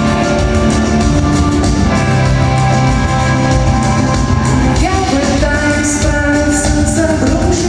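Live rock band playing in a large concert hall, with drums and guitars; a sung vocal line comes in about five seconds in.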